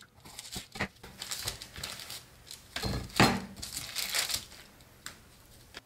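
Kitchen knife cutting a raw salmon fillet on a paper-lined cutting board: irregular rustling and crinkling of the paper, scraping and light clicks, with one louder knock about three seconds in.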